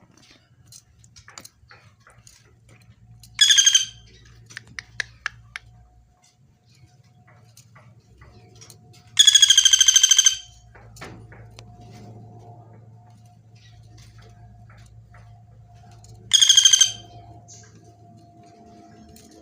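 Pelatuk bawang woodpecker giving three loud, rapid rattling calls: a short one, a longer one lasting about a second, then another short one, spaced several seconds apart.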